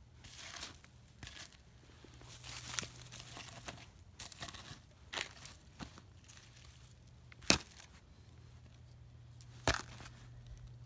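Rustling and crunching in dry leaves, pine straw and twigs around a burned-out campfire, with several sharp cracks, the loudest about seven and a half seconds in.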